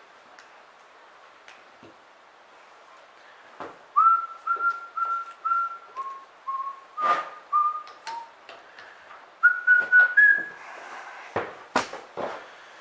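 A man whistling a short tune of about a dozen clear notes that step up and down, with sharp clicks and clacks from jumper-cable clamps being handled on the bench.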